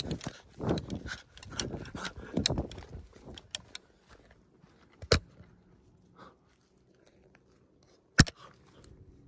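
Rustling and scuffing of movement for about three seconds, then two sharp single cracks about three seconds apart, the second the loudest: single shots from a gel blaster.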